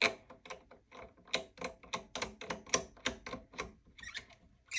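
Quick run of small plastic clicks and ticks, about four a second, as a toilet-seat mounting bolt is screwed in by hand through the bidet's mounting plate; a louder clatter near the end.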